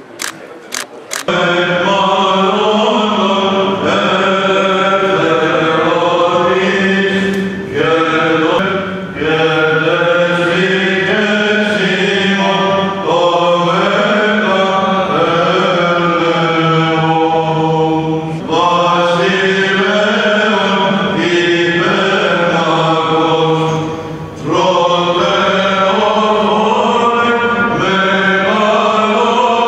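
Greek Orthodox Byzantine chant: voices sing a slow, moving melody over a steady held drone note (the ison), with only brief dips between phrases. A few camera shutter clicks come in the first second, before the singing begins.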